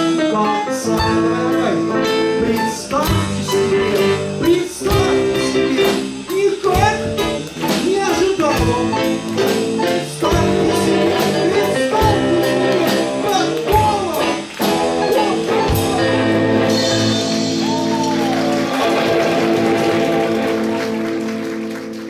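Live rock band: a drum kit with steady beats, an electric guitar and a man singing. About three-quarters of the way through, the song ends on a long held chord with cymbals ringing, which fades out at the very end.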